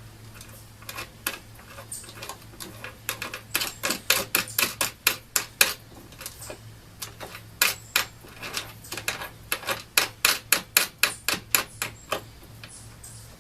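Ratchet wrench clicking in quick, regular runs as it turns the nut down onto a carriage bolt, with a short pause about halfway.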